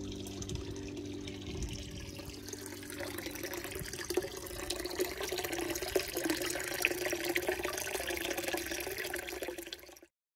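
Water running and splashing, with many small clicks and taps through it. It cuts off abruptly shortly before the end.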